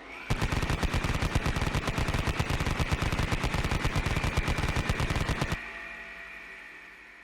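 Vulcan rotary machine gun firing one long continuous burst of about five seconds, the shots coming too fast to count, over a steady high whine from the spinning gun. The firing stops abruptly and the whine goes on, dropping a little in pitch and fading as the gun winds down.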